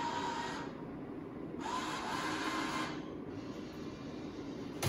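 Small electric motor inside a homemade Arduino-controlled vending machine, whirring in two separate runs of about a second each, with a steady whine.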